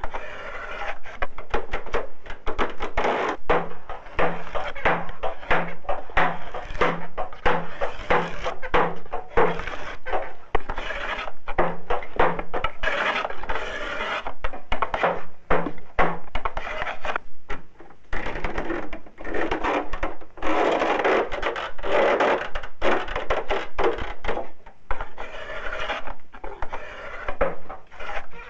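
Coopers hammering hoops down onto wooden barrels with a wooden mallet and hoop driver: a dense run of rapid, irregular wooden knocks.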